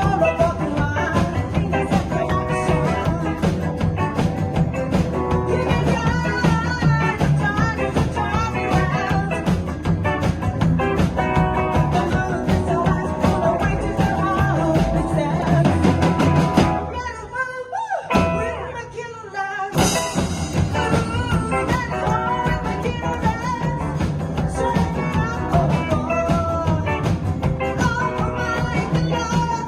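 Rockabilly band playing live with a singer. About 17 seconds in, the band stops for a few seconds of stop-time with only a thin sound left, then the whole band comes back in.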